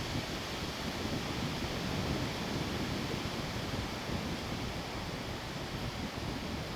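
Wind blowing, with a steady rushing noise and gusts buffeting the microphone in a low, uneven rumble.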